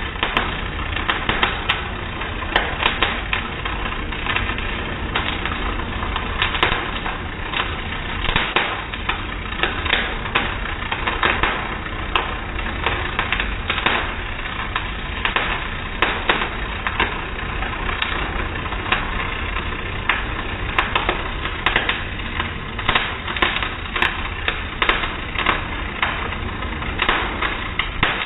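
Electric arc welding: a steady crackle with frequent, irregular sharp pops.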